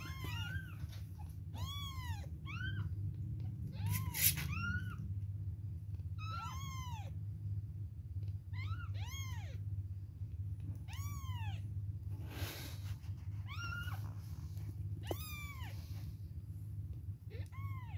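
Two-week-old kittens mewing: about a dozen short, high-pitched mews, each rising and falling in pitch, a second or two apart. A steady low hum runs underneath, and a sharp knock sounds about four seconds in.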